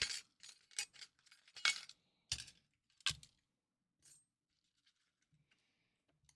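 Small hard console parts clinking and clattering as they are handled and set down. There is a quick run of sharp clicks over the first three seconds, then one faint click about four seconds in.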